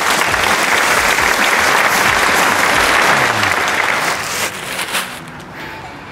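Large plastic protective sheet rustling and crinkling as it is pulled down off a motorcycle, loud and continuous, then dying away about four and a half seconds in.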